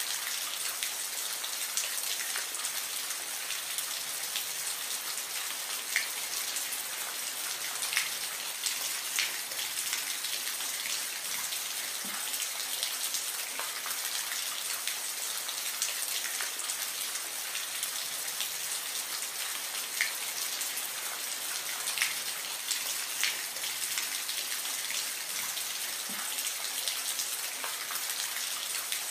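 Steady rain falling, an even hiss with a few louder single drop ticks standing out now and then.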